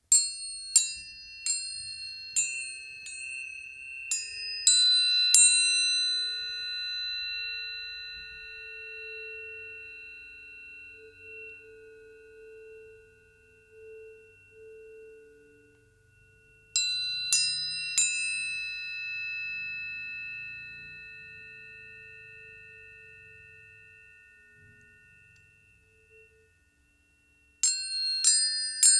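Tuning forks struck one after another, each starting with a bright ping and leaving several clear, steady tones ringing together that slowly fade. There is a burst of about eight strikes at the start, three more a little past halfway, and another cluster near the end.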